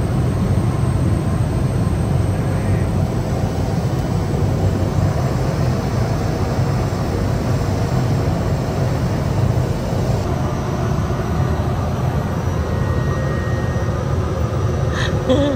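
Steady engine and propeller drone of a small passenger plane in flight, heard from inside the cabin.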